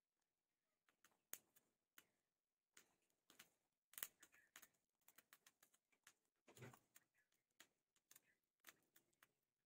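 Faint, irregular sharp clicks and ticks as rice grains pop and puff in a hot miniature pan, mixed with a small metal spoon scraping and stirring through the grains. The sharpest click comes about four seconds in, and a longer scrape follows a few seconds later.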